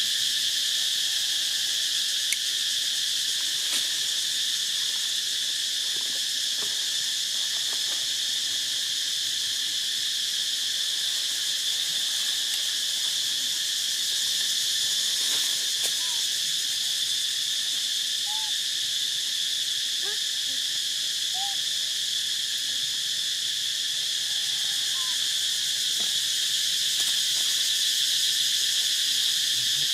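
A steady, high-pitched insect chorus with no break or change in level, with a few faint short chirps in the second half.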